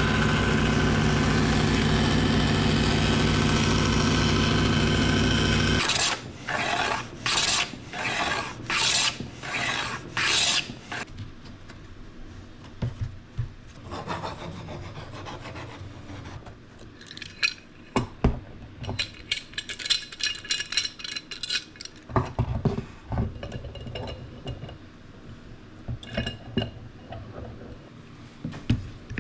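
A steady machine noise that cuts off suddenly about six seconds in, followed by a run of hand filing or sanding strokes on wood, about one a second. After that come lighter scraping, rubbing and occasional taps on the wooden instrument.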